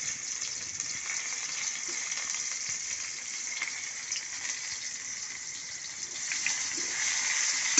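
Chopped onion sizzling in hot oil in a steel kadai, a steady frying hiss with a few light crackles, growing slightly louder near the end.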